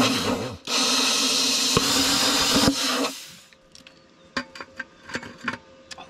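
Handheld plasma cutter trimming a small piece of steel from the edge of a hole in square steel tubing: a loud hiss with a steady buzz under it, a short burst, then a longer cut of about two and a half seconds that stops about three seconds in. A few light clicks follow.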